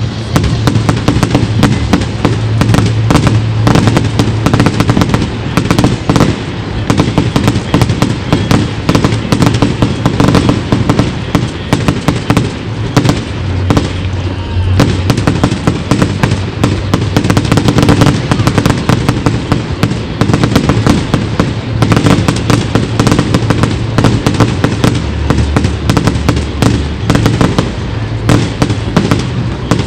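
A continuous fireworks barrage: many crackles and bangs every second, with no let-up. Music plays underneath with steady low notes that change about 25 seconds in.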